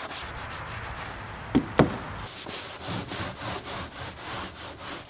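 Small paint roller rolling paint onto a plywood panel: a steady rubbing made of many quick, evenly repeated strokes. Two short, louder sounds come just under two seconds in.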